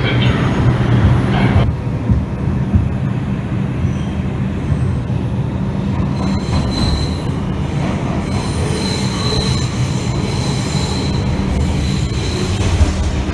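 New York subway R142 trains: a steady low hum and rumble of the cars, louder and fuller for the first couple of seconds as an R142 (5) express passes on the adjacent track. From about six seconds in, a thin high squeal comes and goes over the rumble.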